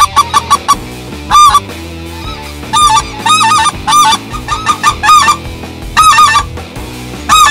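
Hand-blown goose call: a quick run of short clucks at the start, then single and double honks about every second.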